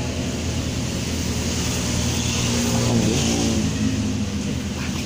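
Steady low hum of a motor vehicle engine running, with its pitch shifting briefly about three seconds in.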